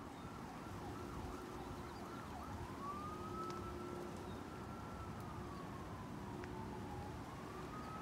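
Faint emergency-vehicle siren: a fast warbling yelp that switches about two and a half seconds in to a slow wail, rising, holding, sinking near the end and rising again.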